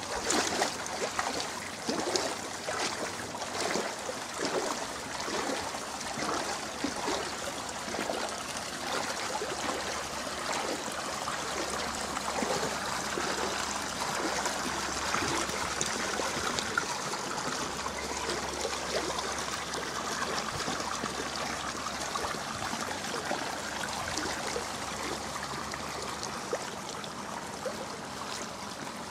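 Flood water sloshing and swishing around the legs of a person wading in waders, with separate splashing strokes in the first few seconds giving way to a steadier wash of water.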